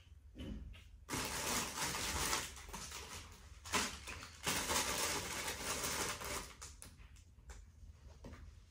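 Rustling and clattering of clothes and belongings being rummaged through in luggage, from about a second in to past the middle, with a few sharper clicks.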